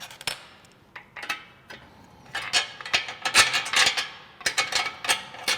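Metal clicks and clinks of bolts and the steel winch mount being fitted into the bumper frame, a few scattered taps at first, then a quick run of clinks for the last few seconds.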